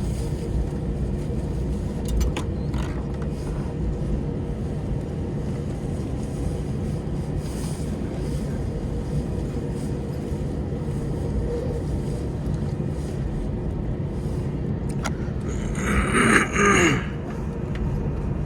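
Airbus A321 cabin during a slow taxi: the steady low rumble and hum of the airliner's engines and rolling airframe. About two seconds before the end, a brief louder sound cuts in over it.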